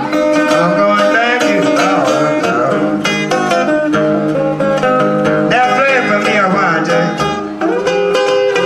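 Live acoustic country blues in the Piedmont style: a steel-string acoustic guitar picked steadily, with a lead melody over it at the microphone whose notes bend and slide in pitch.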